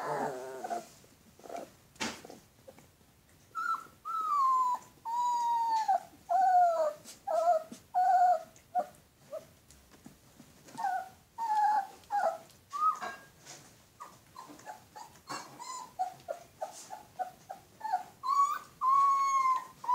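Alaskan malamute puppies whining and yelping while they wrestle, a string of high whimpers, mostly falling in pitch, some short and some drawn out over a second or so.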